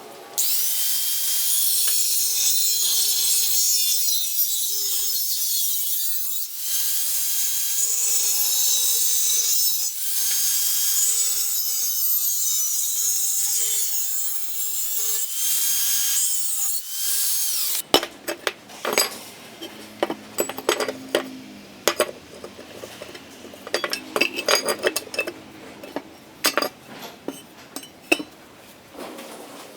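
Angle grinder working steel box bar, a harsh high hiss under load for about eighteen seconds, then it stops abruptly. Irregular clicks and knocks of metal handling follow.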